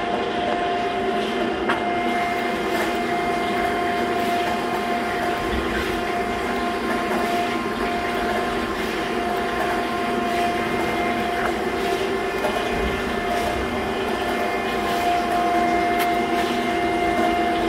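Okamoto ACC-1224-DX surface grinder running under power: a steady mechanical hum with several constant whining tones.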